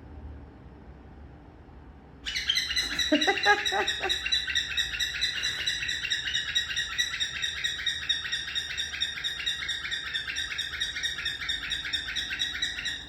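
Cockatiel chirping rapidly and continuously in a fast, even run of high calls that starts about two seconds in and cuts off suddenly near the end. A brief lower rising call overlaps about three seconds in.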